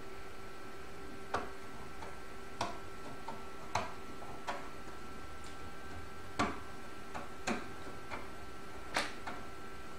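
About ten irregular light clicks and knocks as a black end piece is worked and pushed back onto the steel rods of a 3D printer's print-bed table, over a faint steady hum.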